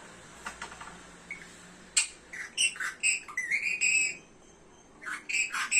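Pet parrot calling: a rapid run of short high chirps and squawks for about two seconds, a pause, then another short burst near the end.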